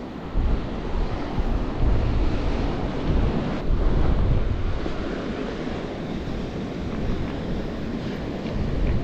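Strong, gusting wind buffeting the microphone, over the wash of rough surf breaking on the shore.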